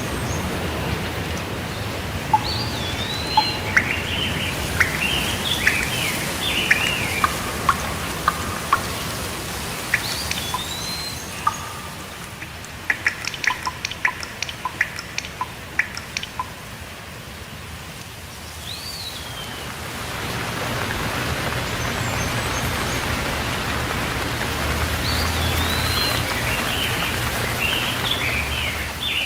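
Steady rainfall with birds calling over it in several bouts: arching whistled notes and quick chirps. The rain grows louder about two-thirds of the way through.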